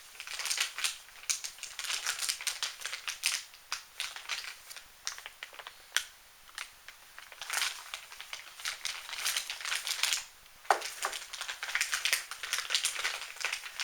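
Plastic parts packaging crinkling and rustling, with many light clicks and knocks of small kit parts being handled while an RC crawler kit is unpacked.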